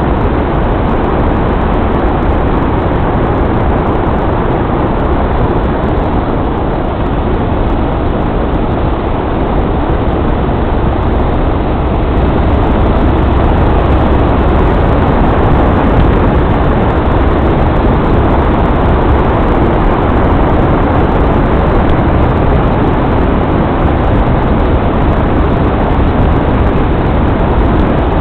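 Steady vehicle driving noise, a dense rumble of engine and road noise that gets slightly louder about twelve seconds in.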